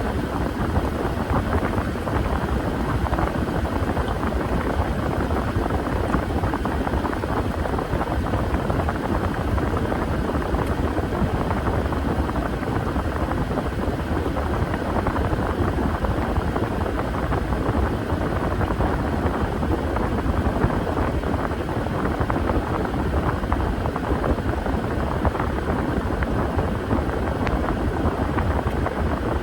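Washing machine running, a steady, unbroken mechanical drone with no change in level.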